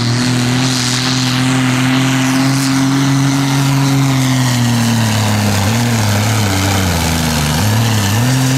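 John Deere tractor's diesel engine at full throttle pulling a weight-transfer sled, with a steady note for the first half. In the second half the pitch dips several times and recovers as the engine lugs under the sled's growing load.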